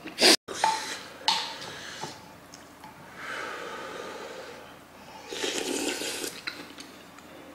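Breathy slurping as hot sundae-guk broth is sipped from a wooden spoon: two long slurps, the second louder, after sharp clicks in the first second or so.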